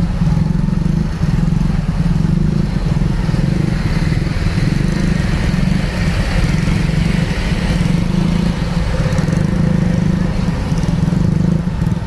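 Motorcycle engine running steadily at low road speed: a constant low drone.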